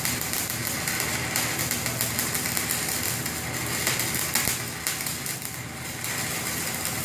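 Manual metal arc (stick) welding: the electrode's arc crackling and sizzling steadily, with a low steady hum underneath.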